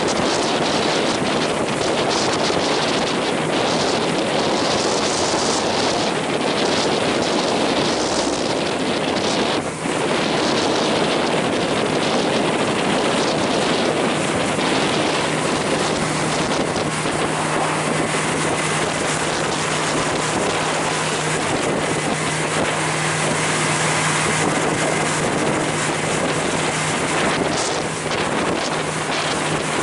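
Wind buffeting the microphone and water rushing past a boat under way. From about halfway through, a steady low engine hum runs beneath the noise.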